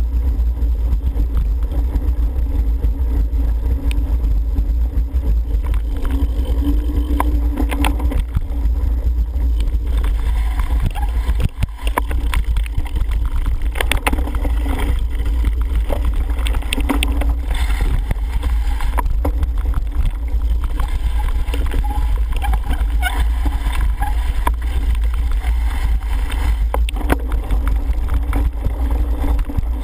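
Wind buffeting a helmet camera's microphone as a cyclocross bike is ridden at speed, a steady low rumble, with frequent rattles and knocks from the bike going over rough wet ground.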